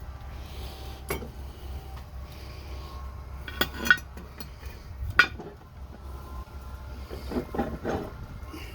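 Metal clinks and clanks of a cast iron Dutch oven's lid being handled and lifted off to check the cobbler: a few separate sharp knocks, then a quick cluster of clinks near the end.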